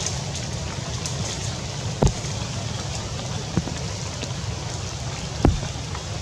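Steady rain with a low, constant rumble, broken by three sharp knocks about two, three and a half, and five and a half seconds in.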